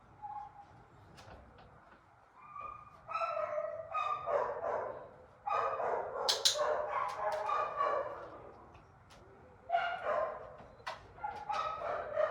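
Puppy whining and yipping in repeated high-pitched bursts over several seconds, with a pause in the middle: the fretting of a young dog unsure in an unfamiliar room while holding a down.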